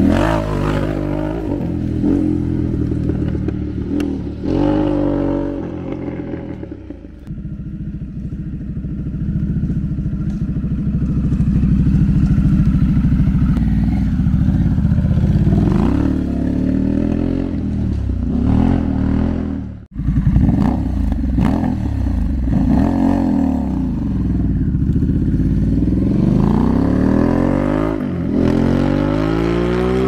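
Harley-Davidson Pan America's 1250 V-twin through a Toce slip-on exhaust, with the muffler baffle box removed, running loud as the bike rides past, revving up and down. The sound breaks off sharply for an instant about two-thirds of the way through and picks up again.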